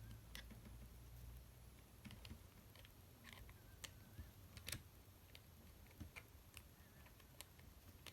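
Faint, irregular small metallic clicks and scrapes as a tool works at the C-clip on a Mako 427 padlock core to pry it off.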